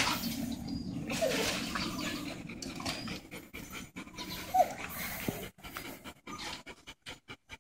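Alaskan huskies panting quickly, with two short high whines, about a second in and more loudly about four and a half seconds in.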